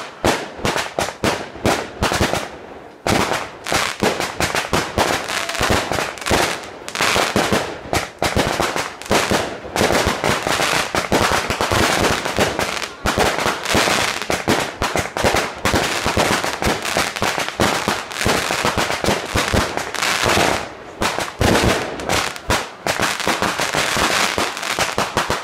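Fireworks display: aerial shells bursting overhead in a dense, nearly unbroken barrage of bangs and pops, thinning briefly about two seconds in.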